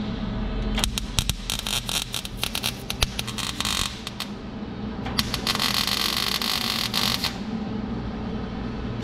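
Arc welder tack-welding a steel exhaust pipe: two bursts of crackling, the first starting about a second in and lasting some three seconds, the second from about five to seven seconds in, over a steady low hum.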